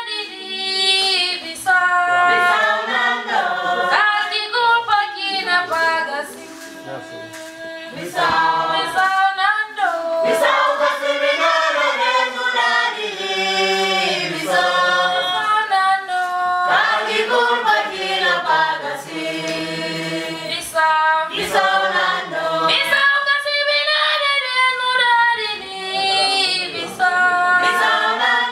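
A choir singing, led by a woman's voice, with several voices sounding together. The singing dips to a softer passage about six seconds in, then swells again.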